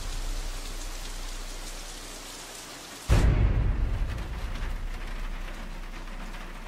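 Deep booming impacts, each dying away into a long rumbling, rain-like rush, like thunder. One hits about three seconds in and another right at the end, over a steady low hum.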